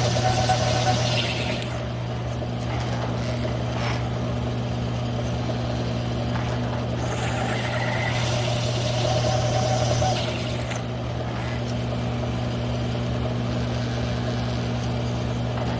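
G1007 mill-drill running steadily with a one-inch hole saw cutting through 3/8-inch mild steel plate, a constant motor hum under a harsher cutting noise that swells at the start and again about halfway through.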